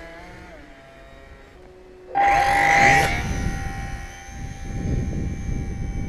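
Radio-controlled model airplane's motor and propeller in flight: the drone fades away at first, then about two seconds in comes back suddenly loud with a steady high tone as the plane passes close, and the tone carries on. Wind rumbles on the microphone.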